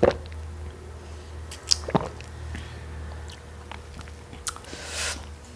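A person sipping and swallowing a cold drink from a glass, with small wet mouth clicks and lip smacks, and a short breathy exhale near the end.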